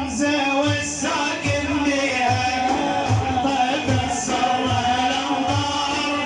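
Music: a wavering sung melody over a steady low drum beat of about two strokes a second.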